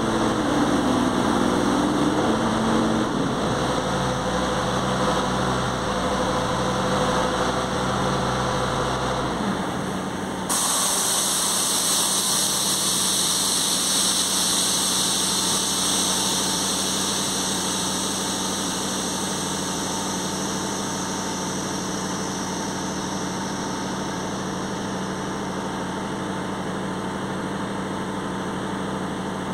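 Diesel engine of a JCB 803Plus mini excavator running. Its pitch shifts in the first few seconds, then it settles to a steady idle. About ten seconds in the sound changes abruptly and a steady hiss joins the engine.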